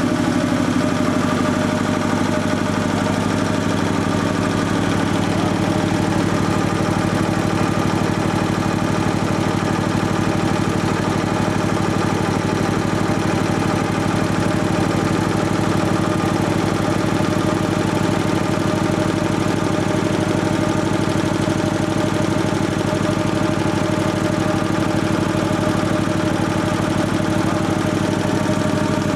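Sperre HV2/200 piston air compressor running steadily on test, a fast, even pulsing of its strokes under a steady hum.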